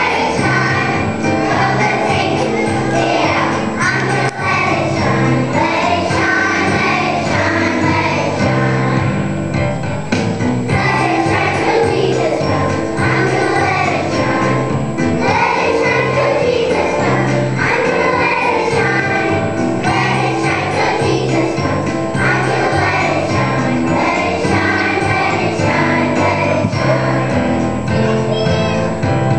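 A children's choir singing a song together with instrumental accompaniment.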